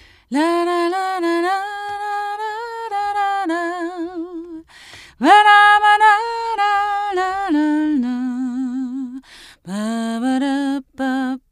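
A woman singing unaccompanied, in long held notes that scoop up into pitch and carry a wide vibrato. She sings in several phrases with short breaks, and drops lower in pitch about eight seconds in.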